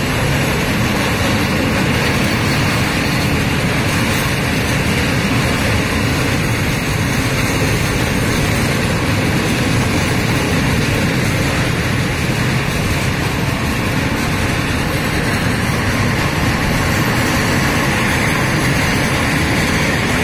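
Freight train of open-top gondola wagons rolling past at speed: a steady, loud rumble of steel wheels on the rails that keeps up unbroken as wagon after wagon goes by.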